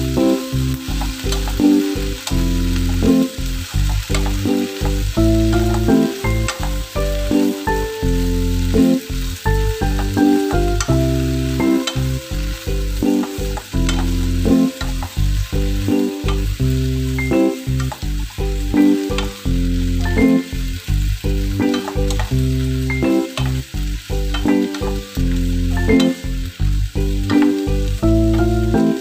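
Napa cabbage sizzling as it is stir-fried in a wok, with a wooden spatula scraping and tossing the leaves in an irregular run of knocks.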